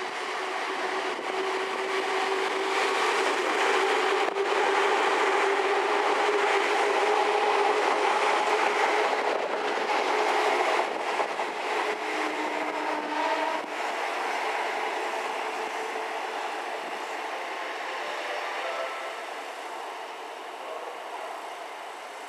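Seibu 101 series electric train passing through a station: its running noise and a steady motor hum swell to a peak and then fade, with a run of wheel clicks over the rail joints about halfway through.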